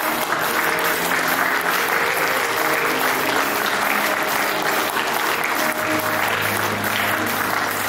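An audience clapping, a dense steady applause that cuts off suddenly at the end.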